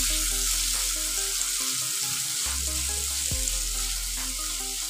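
Sliced onions and tomato chunks sizzling in oil in a nonstick wok over a low gas flame, stirred and scraped with a spatula; a steady hiss.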